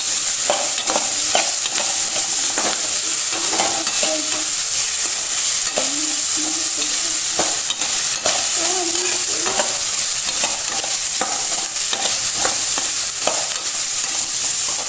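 Chopped onions and tomatoes sizzling in oil in a steel pan, stirred with a steel spatula that scrapes and clinks against the pan again and again.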